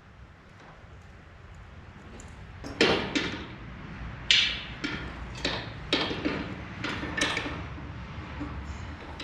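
A run of about eight sharp metallic clanks and knocks from steel implement parts being handled and set in place, the loudest about three and four seconds in, over a steady low hum.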